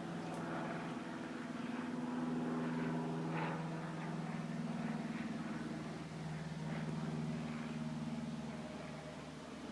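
Low, steady engine drone of an aircraft flying overhead: a hum with several layered tones, its pitch wavering slightly.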